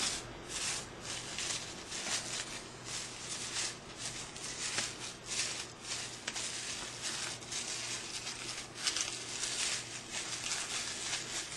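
Thin sewing-pattern tissue paper being scrunched and crinkled by hand: a continuous, irregular rustling crackle.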